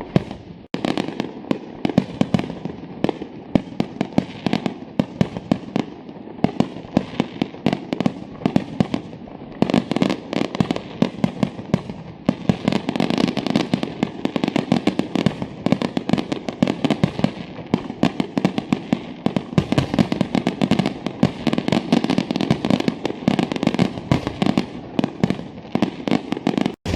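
Professional display fireworks going off in a dense, continuous barrage: many sharp bangs a second over constant crackling. The sound cuts out for an instant just under a second in and again just before the end.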